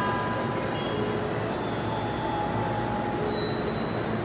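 JR East E233 series electric train pulling out from the platform: a steady running rumble with faint, short whining tones from the drive.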